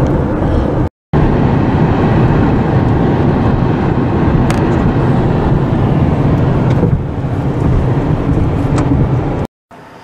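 Steady road noise inside a moving vehicle's cabin at highway speed: tyres, engine and wind rushing together, with a short break about a second in. It cuts out just before the end, leaving a faint steady hum.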